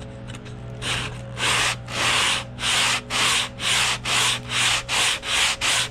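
Sandpaper in a matching profiled wooden block rubbed by hand along the router-cut profile of a wooden door rail or stile: quick back-and-forth sanding strokes, about two a second, starting about a second in.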